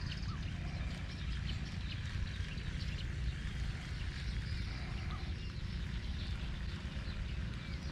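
Outdoor ambience: a steady low rumble of wind on the microphone, with faint, scattered bird chirps.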